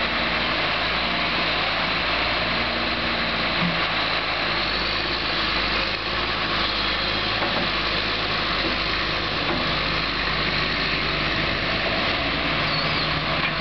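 John Deere 710D backhoe loader's diesel engine running steadily while the backhoe arm lifts and swings logs.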